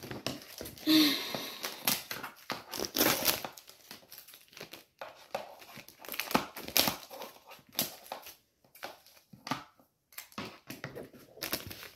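Cellophane wrap on a new skateboard deck crinkling and rustling in irregular crackles as it is cut with scissors and pulled off, with a quieter pause near the end.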